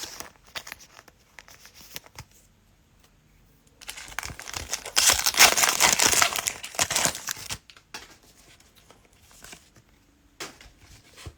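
Plastic cello wrapper of a trading-card pack torn open and crinkled, loudest from about four to seven and a half seconds in, with light clicks of cards being handled before and after.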